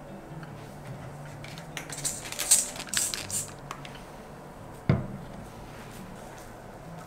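Clumps of terrarium moss handled and pulled apart in a plastic tub: crackly rustling for about two seconds, then a single sharp knock.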